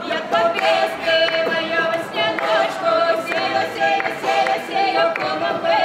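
Unaccompanied group singing of a Ukrainian folk-style song: a woman's bright, open-throated lead on long held notes, with the band's voices joining.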